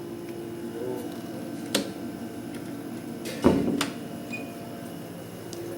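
A sharp click, then about two seconds later a louder knock with a low thud, over a steady low hum.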